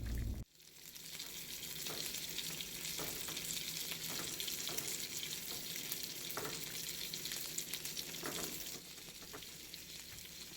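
Food sizzling in a hot frying pan, a steady hiss, with a few soft scrapes of a utensil stirring it.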